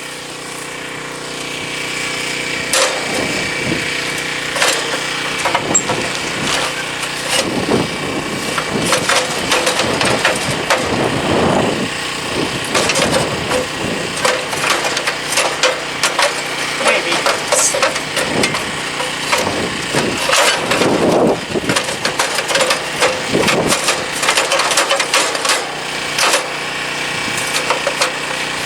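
Repeated metal knocks, clanks and scraping as a lawn tractor's rear transaxle is worked into its cut frame, over a steady hum.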